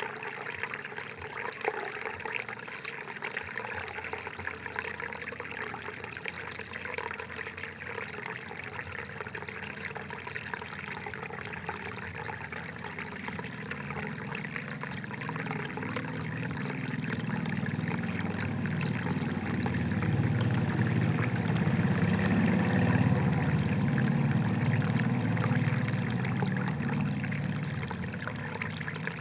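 Water trickling and gurgling steadily, with a deeper low rush that swells up about halfway through and eases off near the end.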